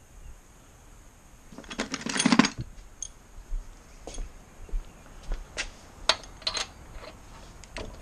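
Metal tools and small metal parts clinking and clattering as they are handled: a burst of clatter about two seconds in, then scattered single clinks.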